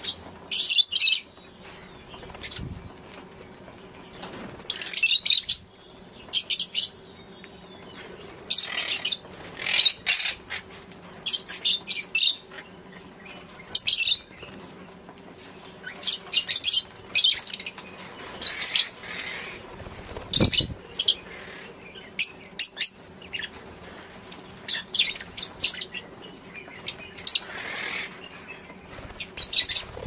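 Flock of African lovebirds chattering at a seed feeder: shrill, high chirps in short clustered bursts, a bout every second or two.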